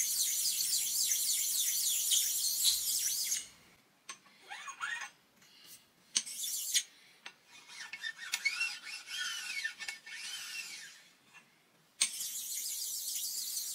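A flat dressing stone is stroked back and forth over a machined aluminium mounting surface and makes a hissing scrape. It runs steady for the first three seconds or so, turns to lighter, broken strokes with a few faint squeaks, then runs steady again near the end. The sound is even and really smooth, the sign that the surface has no high spots or burrs.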